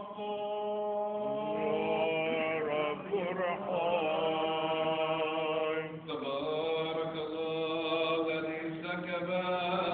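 Orthodox church chant: a voice sings long, held, ornamented notes over a steady low drone, with the melody shifting to a new pitch about six seconds in.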